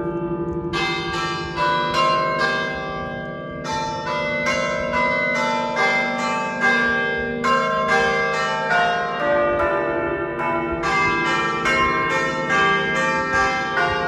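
Church bells of the Basilica da Estrela's towers ringing. Several bells of different pitches are struck in quick succession, about four strikes a second, in runs with short breaks, over a lingering hum of the ringing bells.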